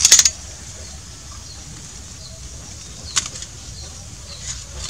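A short burst of crackling rustles and clicks as an air rifle is handled against dry leaves and ghillie-suit fabric, then a quiet background broken by one faint rustle about three seconds in.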